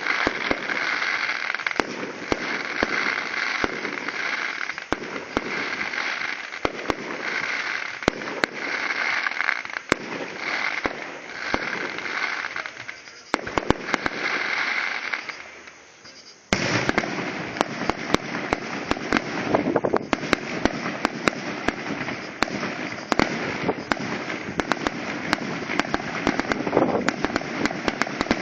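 Fireworks crackling and popping in rapid, dense volleys. Just past halfway the crackle fades almost away, then starts up again suddenly.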